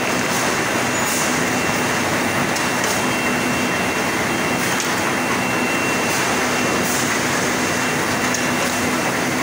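Automatic pasting machine for 5-ply corrugated board running: a steady mechanical rush with a low hum and a faint high whine, and light clicks now and then.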